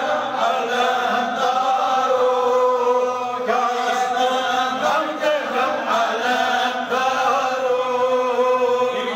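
Devotional chanting: a voice sings long, drawn-out lines on held notes that bend slowly in pitch, with short breaks between phrases.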